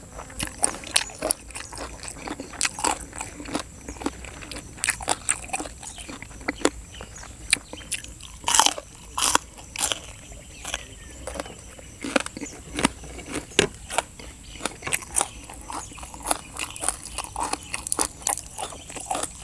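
A person chewing and crunching crisp raw green vegetables close to the microphone, with an irregular run of wet bites and crunches.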